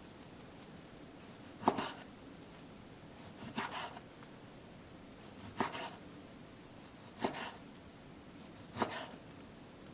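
Kitchen knife slicing through raw pork belly and knocking down on a wooden cutting board, five cuts at an even pace, each a short drawing stroke ending in a knock.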